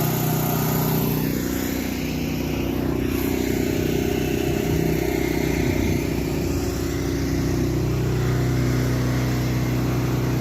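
Small engine of a soft-washing rig running steadily, its pitch holding level, with a slight wavering in the low end for a few seconds after the start.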